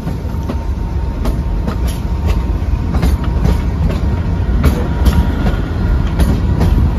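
Narrow-gauge Kalka–Shimla toy train running on its track: a steady low rumble with sharp, irregularly spaced clacks of the wheels over rail joints.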